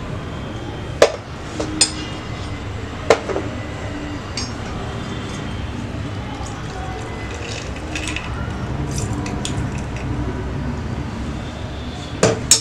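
A few sharp clinks against a glass tumbler as lemon is squeezed into it: one about a second in, one near two seconds, one about three seconds in, and a quick run of them near the end. They sit over a steady low background noise.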